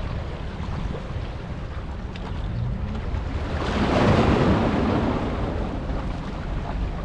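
Steady rushing of wind and sea water over a low rumble, swelling into a louder rush for a couple of seconds around the middle.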